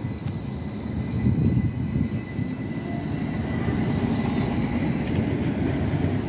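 Stockholm A32 light-rail tram, a CAF Urbos, running past on its tracks: a steady low rumble of wheels on rail that grows louder over the first second or so, with a thin high-pitched whine above it.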